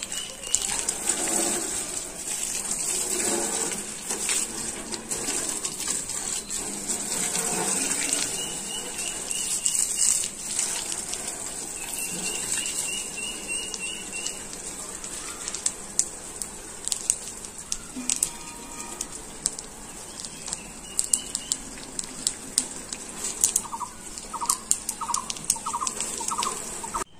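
Water jetting from a hose onto tractor bodywork and the wet ground: a steady hiss with many small spattering splashes. Short chirps, like a small bird's, come and go behind it.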